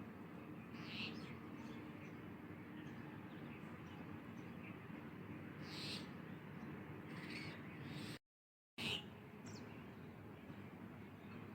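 Birds calling outdoors in short, separate high calls a few seconds apart, over a low steady hum. The sound cuts out completely for about half a second a little after eight seconds in.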